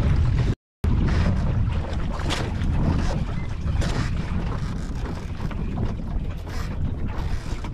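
Wind buffeting the microphone on an open boat at sea, a steady low rumbling rush of noise, cut by a brief dropout to silence just under a second in.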